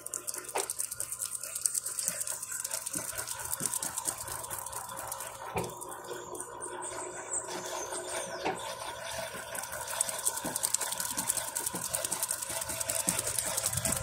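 Electrolux top-loading washing machine spinning its basket: a steady motor whir with fast, even mechanical ticking, and water trickling onto the spinning clothes. It gets louder right at the start.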